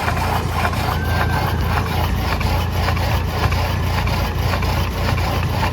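Engine-driven sawmill running: a steady engine drone with a saw cutting through wood.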